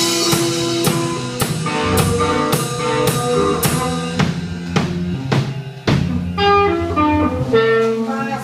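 A live rock band playing: drum kit keeping a steady beat of about two hits a second under guitar notes, the beat turning less regular near the end.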